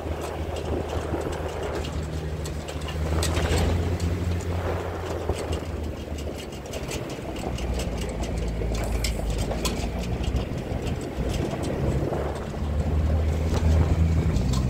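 Vehicle engine running steadily at low speed on a gravel road, with many small clicks and crackles of gravel and stones under the tyres.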